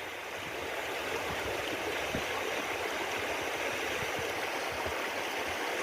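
Flooded river rushing past with a steady, even roar of water.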